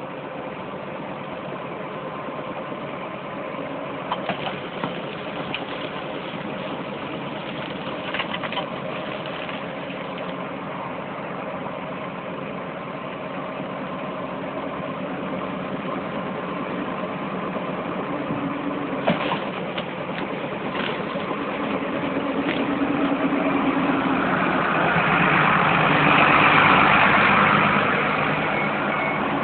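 Bobcat skid steer with a mulcher attachment running steadily, with a few sharp knocks. It grows louder and noisier about five seconds before the end, then eases off.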